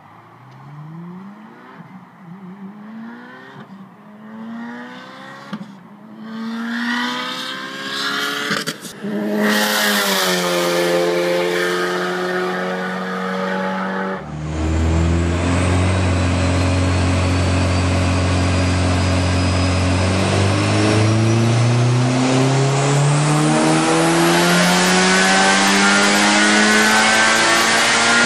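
A turbocharged Subaru STi flat-four accelerating hard up through several gears, each gear a rising engine note, growing louder and rushing past about nine seconds in. About halfway through, a cut to the same car's engine under load on a chassis dyno: it holds a steady note, then winds up in one long full-throttle pull over the last several seconds with a high whine rising alongside, cutting off at the very end.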